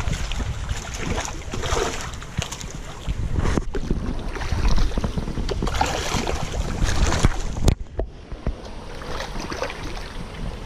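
Trout splashing and thrashing at the surface of a hatchery raceway, close to the microphone, with wind rumbling on the microphone. A sharp knock about three quarters of the way through, after which the splashing quietens.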